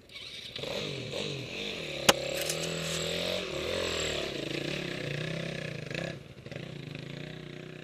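Yamaha dirt bike engine revving up and down under load as the bike claws up a steep rocky slope, its pitch rising and falling with the throttle and dipping briefly about six seconds in. There is a single sharp knock about two seconds in.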